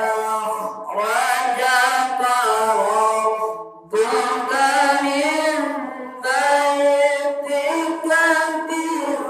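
A voice singing or chanting in long melodic phrases, holding wavering notes, with short pauses between phrases.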